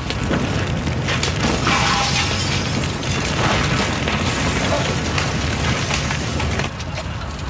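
Explosion and fire: a long, dense blast rumble with burning debris, which drops away abruptly near the end.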